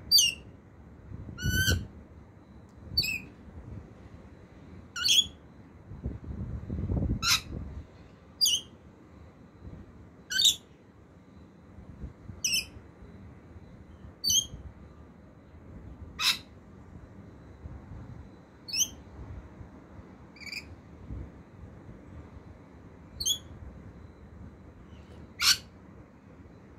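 Rainbow lorikeet giving short, high-pitched chirping calls, one every second or two, about fourteen in all.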